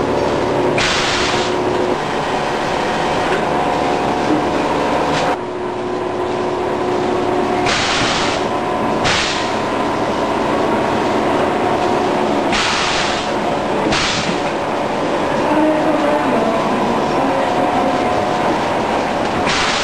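VC999 85.47i hot-water shrink tank running: a steady machine hum with several steady tones, broken by short hisses that come several times, mostly in pairs about a second and a half apart.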